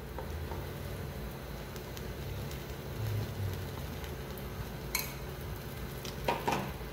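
A spoon spreading thick cornmeal-and-egg batter in a frying pan and scraping it from a glass bowl, with a couple of light clinks about five and six seconds in, over a low steady hum.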